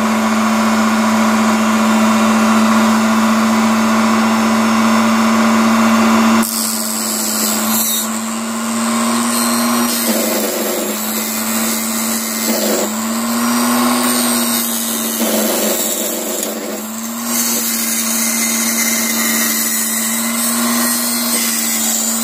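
Small hobby table saw with a small circular blade running at full speed with a steady hum. About six seconds in, it starts sawing thin wooden veneer strip, and the motor's pitch sags briefly several times as the blade takes the load.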